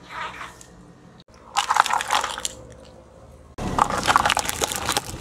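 Car tyre rolling over and crushing small plastic objects: bursts of crackling and crunching, one about a second and a half in and a louder, denser one starting about three and a half seconds in, each broken off abruptly.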